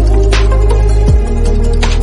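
Electronic background music with a deep, sustained bass, a kick drum and two sharp snare-like hits.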